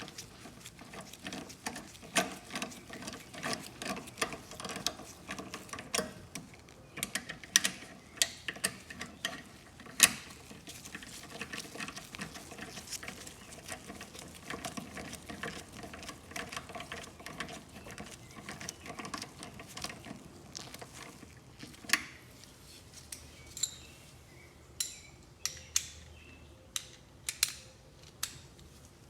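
Wrench tightening the carburetor mounting nuts on a lawn mower: scattered metallic clicks and taps, some in quick runs, with a few louder knocks of tool on metal.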